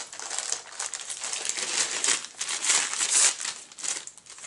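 Plastic packaging crinkling and rustling in irregular bursts as a graded comic slab is slid back into its wrapping, loudest in the middle.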